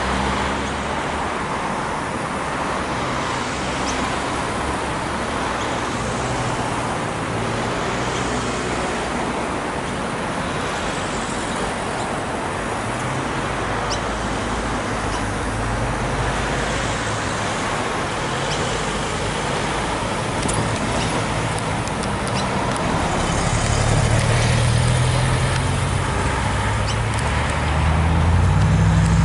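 Road traffic: cars driving past at a steady level, tyre and engine noise, with a heavier low engine rumble building about two-thirds of the way through and again near the end.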